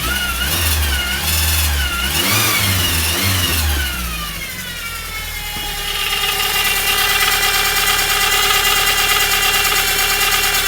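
Volkswagen Scirocco Mk2 engine revved up and down a few times, with a whine that rises and falls with the revs, then dropping back and running steadily from about six seconds in, with a steady high-pitched whine over the engine note.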